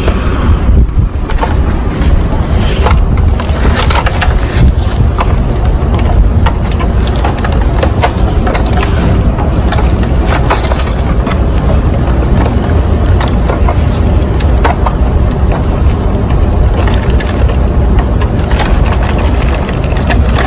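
Plastic interior trim of a 1999 Lexus RX300's centre console being pried and handled during a console swap: irregular clicks, knocks and cracks, over a loud low rumble.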